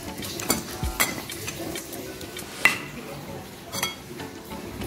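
Stone pestle grinding and mashing wet chili-and-tomato sambal in a stone mortar (Indonesian cobek and ulekan), with scraping and several sharp stone-on-stone clacks, the loudest about two and a half seconds in.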